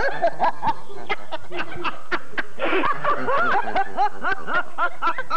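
A woman and a man laughing together in quick, repeated chuckles.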